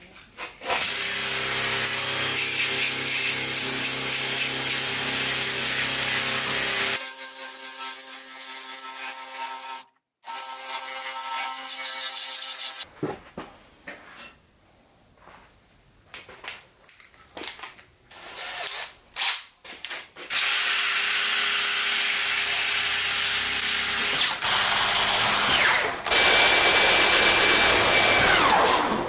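Cordless drill spinning a wire brush against a rusty steel frame, stripping rust. It runs steadily in several stretches with abrupt cuts between them. A quieter stretch in the middle holds scattered knocks and clatter.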